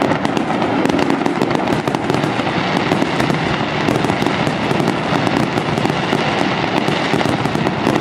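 Aerial firework shells bursting in a dense, continuous barrage: many bangs running together with crackling, with no break.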